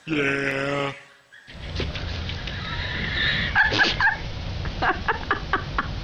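A black goat gives one loud, yelling bleat, just under a second long. After a short gap, a steady low rumble runs with a scatter of short clicks and brief noises while a white goat works its open mouth at a wooden fence.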